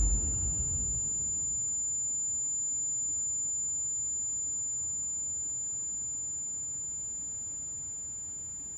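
A single steady high-pitched ringing tone that slowly fades, over a faint low background. It is a film sound effect standing for ringing in the ears after a loud blast.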